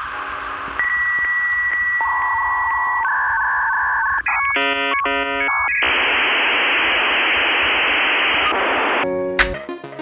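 Electronic background music: held synth tones, then a stuttering chord, then a long rushing noise swell that breaks off into a single hit near the end before the music carries on.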